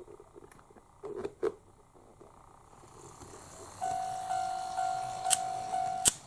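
Electronic warning bell of a KATO automatic model level crossing, sounding its steady two-note-like ding about twice a second for a little over two seconds and cutting off with a click near the end. A couple of light clicks come about a second in.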